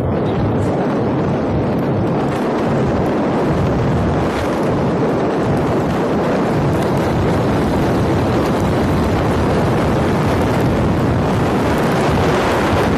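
Steady, loud wind rush on the microphone of a motorcycle riding at speed, mixed with the bike's road noise.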